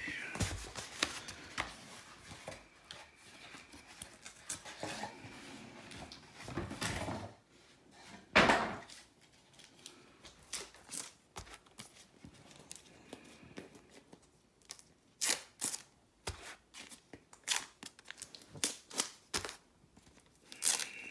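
A cardboard mystery box being opened by hand: scattered tearing, rustling and crinkling of the packaging, with light clicks and knocks as it is handled, and one louder tear about eight and a half seconds in.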